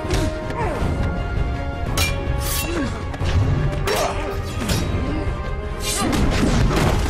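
Action-film fight soundtrack: a driving orchestral score under a quick run of sharp blows and metallic clashes, claws striking a fighting staff, with swishes between the hits.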